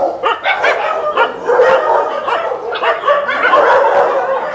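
Many shelter dogs barking at once, their barks overlapping, growing denser and more continuous about three seconds in.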